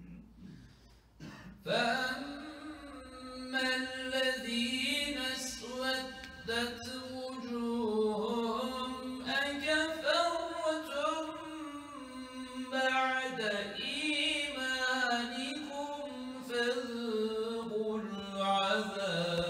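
A solo man's voice chanting an Islamic recitation in long, wavering, ornamented held notes. It starts about two seconds in.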